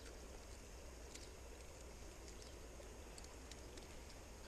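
Near silence: faint outdoor background with a steady low rumble and a few faint, scattered high ticks.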